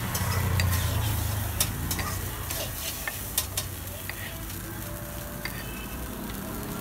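Metal spatula scraping and clicking on a flat iron dosa griddle, with food sizzling on the hot surface. A low rumble underlies the first couple of seconds.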